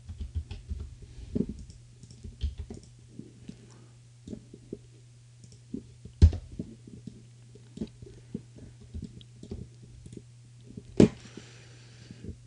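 Computer keyboard typing and mouse clicks: scattered light taps, with two sharper, louder clicks about six and eleven seconds in, over a steady low hum.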